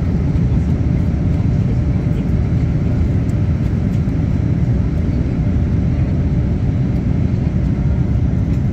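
Steady low rumble of cabin noise inside a passenger jet airliner in flight.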